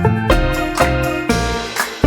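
Upbeat background music: keyboard or piano notes over a bass line, changing about every quarter second with a steady beat.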